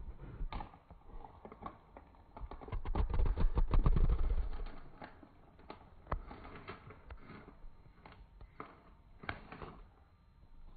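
Scattered small clicks and taps of hands handling Skittles candies beside glasses of water. About 2.5 seconds in, a louder stretch of low rubbing and bumping handling noise lasts about two seconds.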